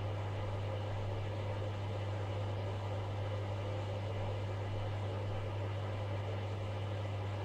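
Vacuum cleaner running with a steady hum, its hose nozzle held at the entrance of a common wasp nest in a wall gap to suck up the wasps.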